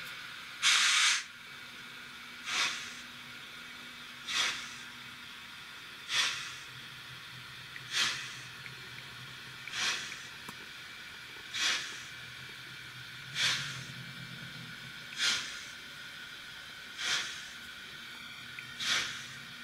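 Sound decoder of a Trix 22960 BR 96 Mallet HO model steam locomotive playing slow steam chuffs through its small speaker: a short hiss about every two seconds, eleven in all. The first, about a second in, is louder and longer, and a faint low hum runs beneath through the middle.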